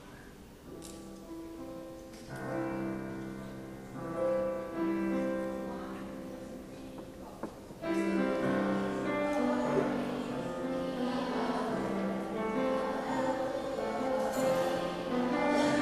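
Piano accompaniment playing held chords, then a children's choir comes in singing with it about eight seconds in, and the music grows louder.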